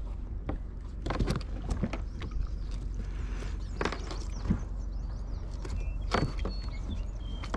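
Scattered light knocks and splashes around a plastic sit-on-top kayak on the water, about seven of them, over a steady low rumble.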